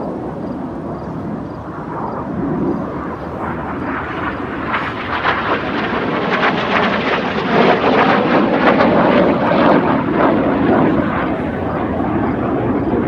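Jet noise from Red Arrows BAE Hawk T1 display jets passing over: a rushing roar that swells to its loudest about eight seconds in, then fades.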